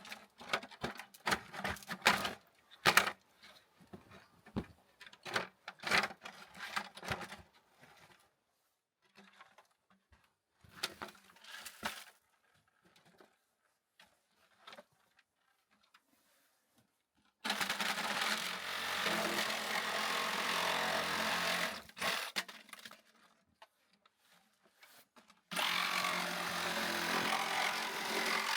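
A handheld power tool runs in two bursts of about four and three seconds, with a steady motor hum under it. Before that come scattered knocks and clatter of tools and material being handled.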